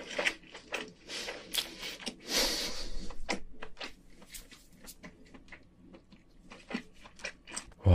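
Close-miked chewing and wet mouth clicks of someone eating king crab meat, with a longer noisy stretch about two seconds in, then sparser clicks.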